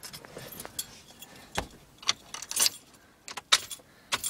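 A bunch of keys jangling, with a few sharp irregular clicks and knocks as the keys are handled at the driver's seat. The loudest click comes about three and a half seconds in.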